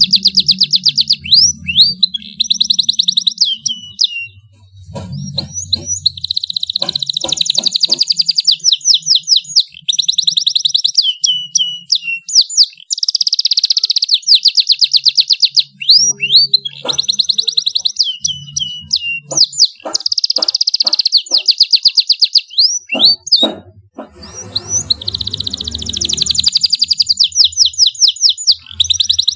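Domestic canary singing loudly in full song: long, fast trills of rapidly repeated high notes, broken by quick downward-sweeping notes and short pauses between phrases.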